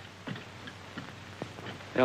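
Footsteps crossing a room: a handful of light, irregular knocks, over the steady hiss and hum of an old film soundtrack.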